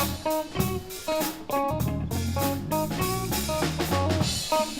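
Background music with a drum kit, a bass line and short plucked guitar notes in a steady beat.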